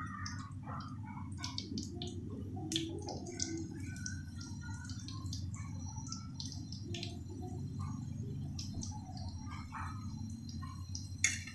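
Samosas frying in hot cooking oil in a metal kadai: the oil crackles and pops lightly and irregularly over a steady low hum. A louder click comes near the end.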